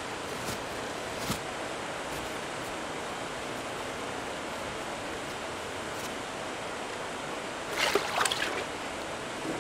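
Steady rush of flowing stream water, with a few faint clicks. About eight seconds in comes a short burst of splashing as a Eurasian otter slips from the ice into the open water.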